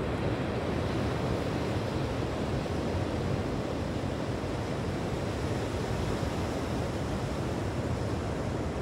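Steady rush of sea surf, with wind buffeting the microphone.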